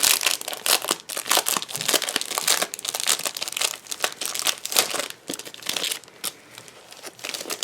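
Packaging crinkling and rustling in quick irregular bursts as a pack of champagne foil sheets is opened and handled by hand. The crinkling thins out near the end.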